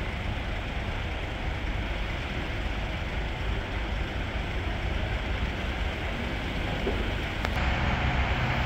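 Steady traffic noise at an open-air bus station, with a low rumble throughout. Near the end a steady engine hum comes in, as of a city bus idling at its stop.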